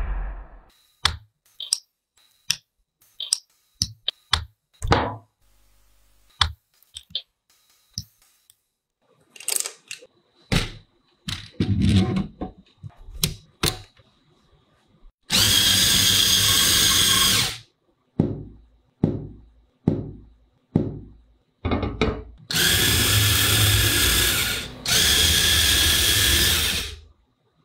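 A run of short clicks and knocks as Lego Technic pieces are fitted together, then the Lego car's small electric motor whirring through its gears in two runs, about two seconds and then about four seconds long.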